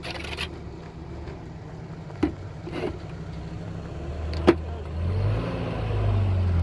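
Nissan pickup truck's engine running at low speed as the truck crawls over a rocky dirt track, with a few sharp knocks as it jolts over the stones. About five seconds in the engine grows louder, its pitch rising and then falling as the truck comes close.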